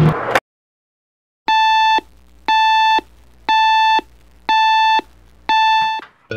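Digital alarm clock beeping: five half-second beeps at one steady pitch, one a second, ending as a hand presses the clock to switch it off.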